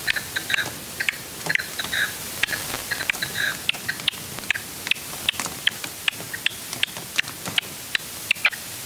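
Red-legged partridge calling: a rapid series of short, sharp clucking notes, several a second, that keeps going without a break.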